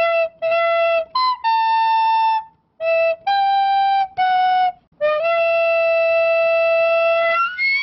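Intro music: a single solo melody line of about eight notes, short ones first, then one long held note, rising at the very end.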